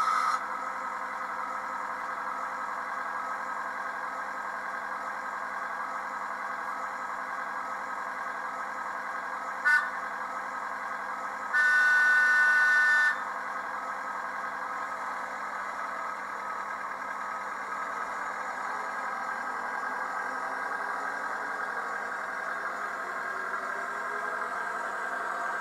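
Sound-decoder playback in a Heljan OO gauge model of the North Eastern Railway Electric Autocar, through the model's onboard speaker: a steady running drone as the railcar moves off. A brief toot comes about ten seconds in, and a louder two-note toot lasting about a second and a half follows shortly after.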